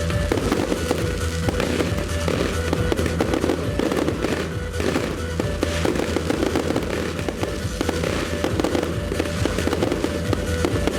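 Fireworks bursting and crackling densely and without a break, over music played loud through a sound system for the display.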